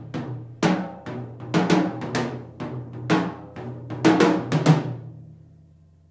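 Indie rock band ending a song: drum kit and crash cymbals strike a run of accented hits over ringing guitar and bass chords, then everything rings out and fades away about five seconds in.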